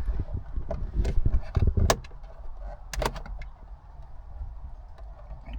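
Hands handling car interior trim parts and screws: bumping and rubbing for the first two seconds, then a few sharp plastic clicks and knocks, two of them loud.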